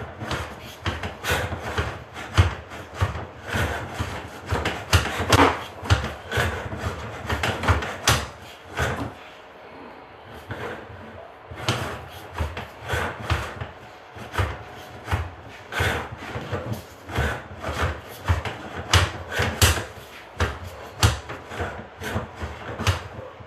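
Irregular scraping, rubbing and knocking from a sewer inspection camera's push cable and head being fed through an old cast iron drain pipe, with a brief pause about ten seconds in.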